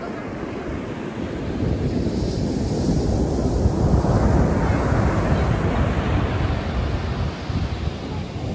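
Ocean surf breaking and its wash running up a coarse-sand beach, with wind rumbling on the microphone. The surf grows louder from about two seconds in and eases near the end.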